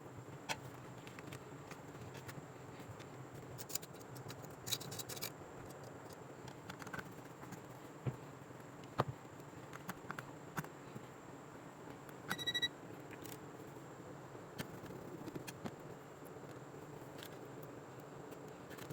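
Small scattered clicks and taps from handling tools and small parts at an electronics repair bench, with one short electronic beep about twelve and a half seconds in, over a faint steady hum and a thin high whine.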